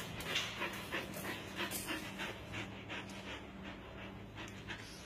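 Dog panting rapidly, about four quick breaths a second, easing off near the end.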